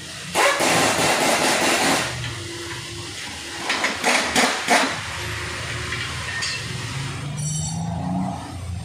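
Workshop noise: a rushing hiss lasting about a second and a half, then a few sharp knocks around the middle, over a low steady hum.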